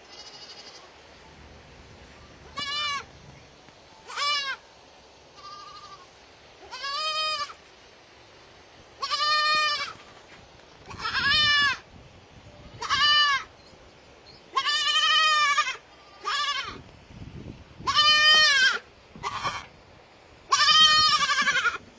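Baby goat (kid) bleating repeatedly: about a dozen high, quavering calls, each lasting up to about a second, with short pauses between them.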